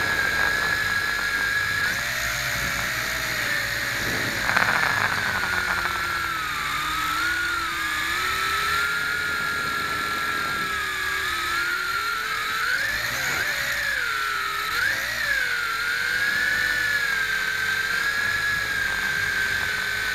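WLtoys V262 quadcopter's electric motors and propellers whining close to the onboard camera, the pitch wavering up and down with throttle, with a brief louder rush about four and a half seconds in.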